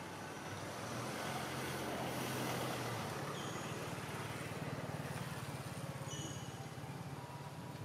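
A motor vehicle's engine running, with a steady low hum; the noise swells to its loudest about two and a half seconds in and then eases off, as a vehicle passing by would.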